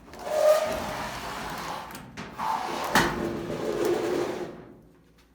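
Scraping and rubbing noise in two stretches, with a sharp click about three seconds in, as a heavy electric clothes dryer is shifted and unplugged from its wall outlet.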